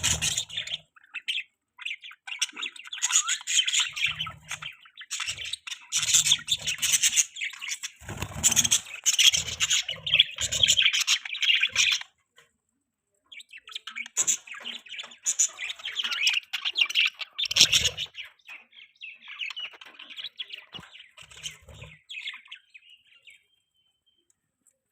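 Budgerigars chirping and chattering in quick, busy runs of high notes, with a short pause about half-way through and occasional low thumps underneath; the chirping dies away shortly before the end.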